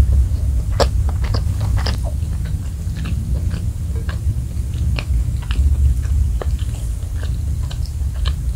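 Close-miked chewing of fried rice, with many scattered crisp clicks and crackles over a steady low rumble; near the end, the crunchy crust of a fried chicken piece is pulled apart by hand.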